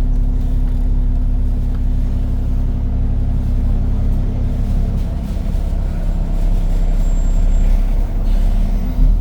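ADL Enviro 400 Trident double-decker bus running stationary with its engine cooling fan going, a steady low hum that thins slightly about halfway through. A brief knock comes near the end.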